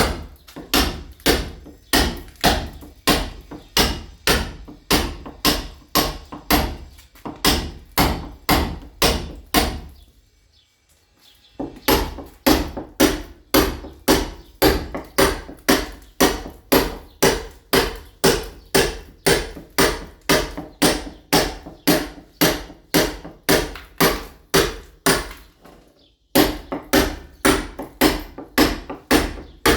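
Club hammer striking a steel chisel in a steady rhythm of about two to three blows a second, chipping the painted surface of a masonry wall to key it for ceramic tile. The blows stop for about two seconds a third of the way in, and break off briefly near the end.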